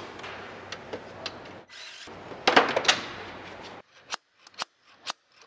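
Hand tools and metal engine parts being handled: soft scraping and rubbing with small clicks, a louder rasp about two and a half seconds in, then a few sharp clicks with near silence between them.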